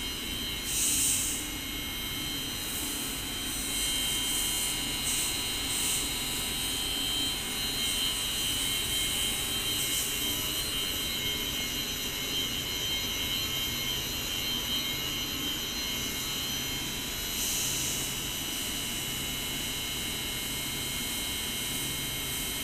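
Water-cooled chillers running: a steady machine drone with constant high whining tones over a hiss, with a few brief swells of hiss.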